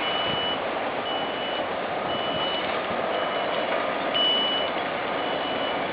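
Backup alarm of heavy construction equipment reversing: a steady high beep repeating about once a second, over the even noise of the work site.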